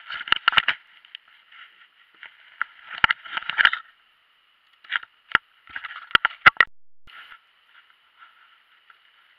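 Scattered knocks, clicks and scrapes on a hard plastic kayak deck as a fishing rod, reel and a small caught fish are handled, coming in several short clusters and dying away near the end.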